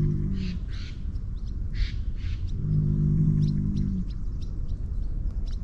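Bull lowing: a long low call ending just after the start and another from about two and a half seconds in, with short raspy bursts in between. Small birds chirp throughout.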